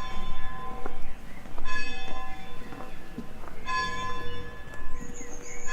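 A church bell tolling slowly, one stroke about every two seconds, each ringing on and dying away before the next.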